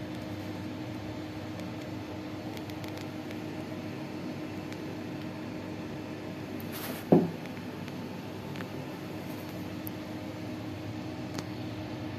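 Steady fan hum with an even low tone. About seven seconds in, a short, louder sound slides quickly down in pitch, and a few faint clicks are heard.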